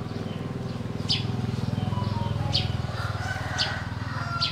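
A bird chirping: four short, high, falling chirps, about one every second and a half, over a steady low pulsing rumble.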